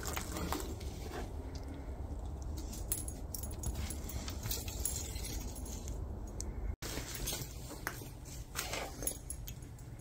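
A dog sniffing and moving about over debris, with scattered light clicks and crunches and a faint metallic jingle, over a steady low rumble. The sound breaks off briefly about seven seconds in.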